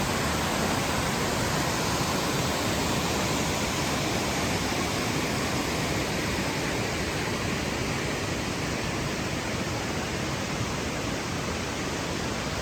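Steady, even rushing noise like running water or static, spread across low and high pitches with no rhythm, tone or break.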